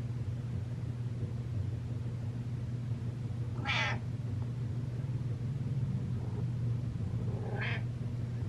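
A domestic cat meowing twice, a little over three seconds in and again near the end, over a steady low hum.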